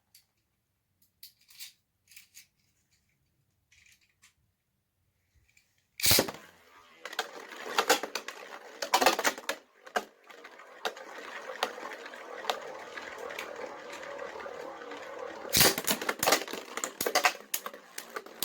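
3D-printed Beyblade spinning tops launched into a stadium with a sharp clack about six seconds in, after a few faint clicks. They then spin with a steady whirring scrape and repeated sharp clashes, with a flurry of hard hits near the end.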